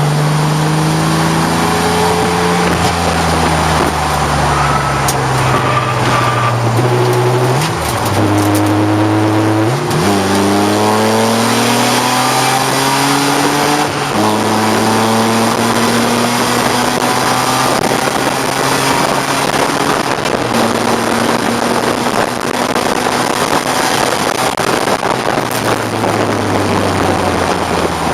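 1989 BMW 535i's straight-six engine running hard on a race track over a steady rush of road and wind noise. The engine pitch sags, jumps up sharply twice in quick succession around a third of the way in, then climbs steadily and drops back as the car is driven through gear changes and acceleration.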